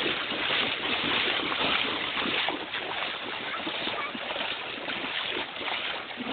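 Stream water rushing and splashing, a dense steady wash of water noise with irregular small splashes.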